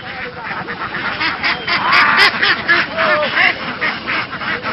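A large flock of domestic laying ducks quacking, with many short calls overlapping at once. The loudest stretch comes about two seconds in.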